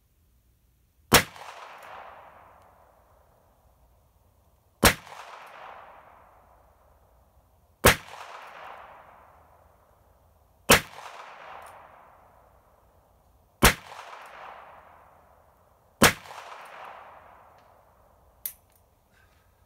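Six shots from a Ruger Wrangler .22 LR single-action revolver firing CCI Mini Mag rounds, a full cylinder, fired one at a time about three seconds apart. Each crack is followed by a long fading echo. A single smaller, sharp click comes near the end.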